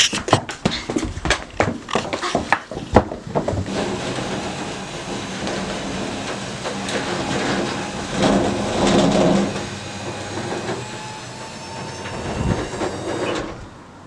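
A quick run of footsteps, then a metal roller garage door rattling for several seconds as it is rolled up. The rattle is loudest about two-thirds of the way through and stops abruptly just before the end.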